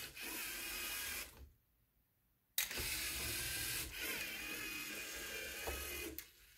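LEGO EV3 robot's motors and plastic gears whirring as it drives and tilts its colour-sensor trap to dump a marble. The sound breaks off for about a second of dead silence a second and a half in, then resumes and fades near the end.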